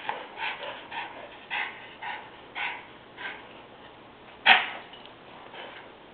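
Small dogs barking and yipping in play: a string of short yaps about two a second, with one loud bark about four and a half seconds in.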